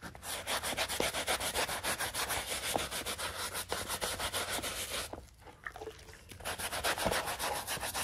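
Hand scrub brush scrubbing a car's floor carpet in rapid back-and-forth strokes, with a short pause a little past halfway before the scrubbing resumes.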